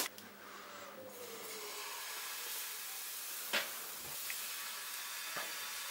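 Crepe batter sizzling in a nonstick pan heated to about 190 °C, a steady hiss that builds over the first second. Two light clicks come a few seconds in.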